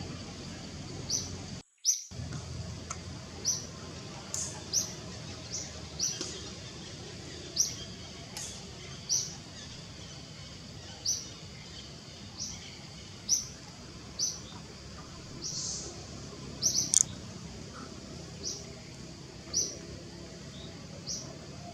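A bird giving short, high chirps over and over, roughly one a second, over a low steady background hiss. The sound cuts out completely for a moment just before two seconds in.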